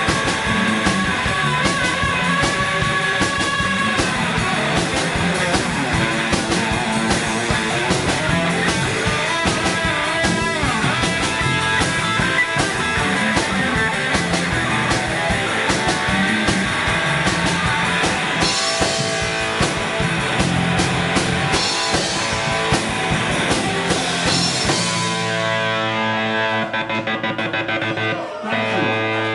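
Live rock band playing: electric guitar, bass guitar and a Mapex drum kit. About 25 seconds in the drumming stops and sustained guitar tones ring on.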